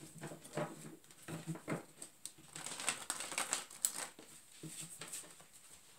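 A deck of tarot cards being shuffled by hand: a run of irregular soft card snaps, slides and taps.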